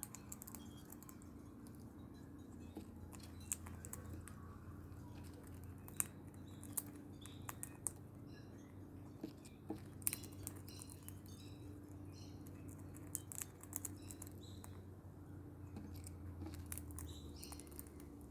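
A parrot eating: irregular small crunching clicks as it bites and chews its food, with a few faint chirps. A steady low hum runs underneath.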